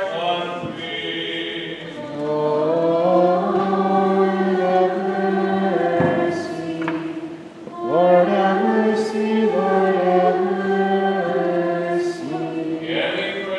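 A group of voices singing a slow Byzantine liturgical chant. Held notes move in steps, with a short break for breath about seven seconds in.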